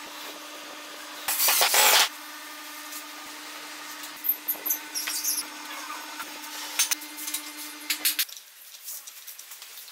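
Workbench handling sounds over a steady low hum that stops about eight seconds in. About a second in there is a loud noisy burst lasting under a second. Around four to five seconds in come light metallic clinks as steel ball-bearing drawer slides are set down on a pine block.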